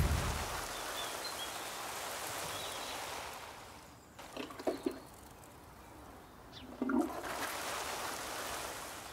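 Water pouring and splashing from a rope-handled bucket, in two long pours with a few light knocks of the bucket between them.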